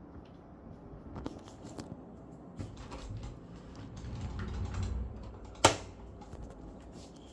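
Scattered light clicks and rubbing of a wooden wardrobe door being handled and opened, with a low rumble in the middle and one sharp, loud click a little past halfway.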